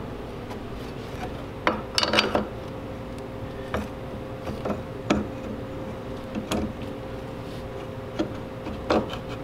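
Rusty steel wishbone and front-axle parts clinking and knocking together as they are fitted by hand: scattered metallic clanks, with a quick cluster about two seconds in, over a low steady hum.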